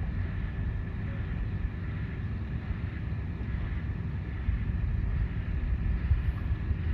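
Wind buffeting the microphone as an uneven, gusting low rumble, over a faint steady higher tone.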